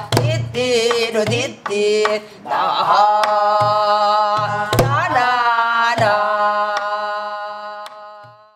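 A woman singing Korean guum, wordless vocal syllables in pansori style, accompanying herself on a buk barrel drum with sharp strokes and deep thumps. The singing ends on a long held note that fades out near the end.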